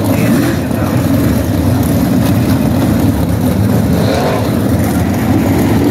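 Several winged sprint cars' 700-horsepower V8 engines running together at racing speed around a dirt oval, a loud, steady, rough engine noise with no break.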